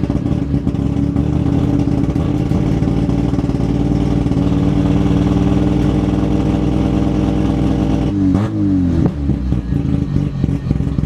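Mazda 13B two-rotor rotary engine running at steady revs, heard from inside the car's stripped cabin. About eight seconds in, the revs dip and climb back.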